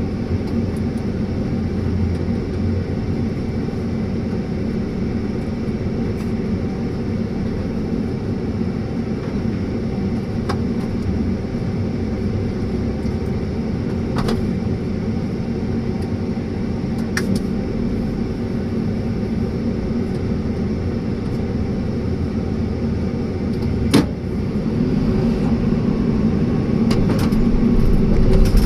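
Excavator's diesel engine running steadily under load while it works soil, with a few sharp knocks and clanks. It gets louder over the last few seconds.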